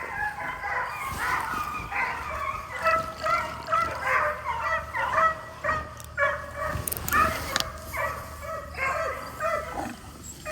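Several deer hounds baying as they run a deer, their short calls at different pitches overlapping, about two a second.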